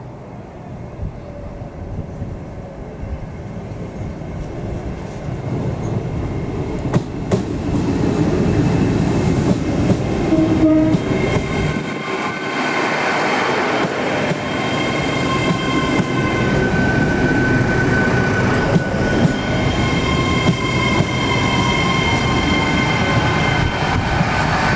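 Great Western Railway Hitachi Intercity Express Train passing close by at speed, running on its underfloor diesel engines: a rumble of wheels on rail that builds over the first several seconds, then a loud steady run of coaches going past, with a high, steady squealing whine from the wheels in the second half.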